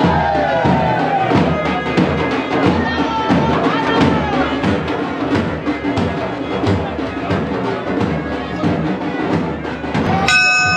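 Music with fast, steady drumming and percussion, with voices over it; near the end the sound cuts to a held tone.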